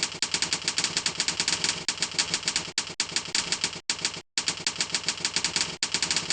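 Computer keyboard typed on fast and continuously, a rapid run of key clicks several a second, with a few brief breaks and a half-second pause about four seconds in.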